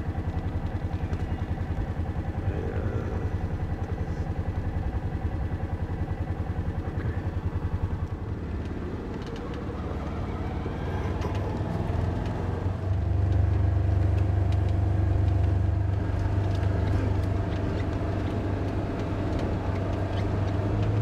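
Engine of a small off-road hunting cart running as it drives across rough ground, a low steady hum with light rattling; the engine gets louder about thirteen seconds in.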